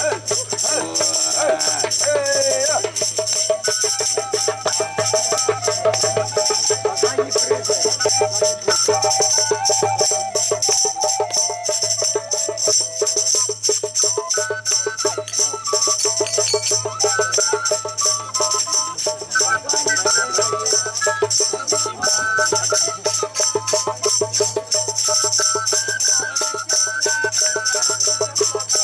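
Music: a fast, steady jingling rhythm of tambourine-like percussion under a shifting melody line, over a steady low drone.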